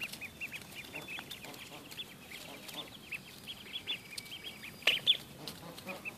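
Ducklings peeping: a steady scatter of short, high chirps from several birds, several a second, with the loudest couple of peeps about five seconds in.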